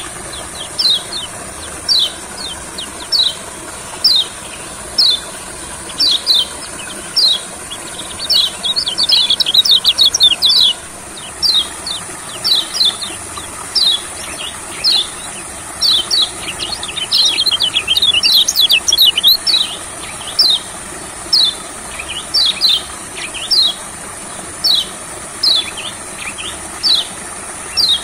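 White-eye (kecial kuning) calling: short, sharp, downward-sliding chirps repeated about once or twice a second. Twice the chirps break into a dense, rapid twittering that lasts two to three seconds.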